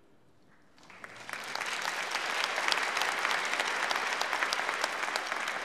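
After about a second of near silence, a church congregation breaks into steady applause for the instrumental ensemble that has just finished playing.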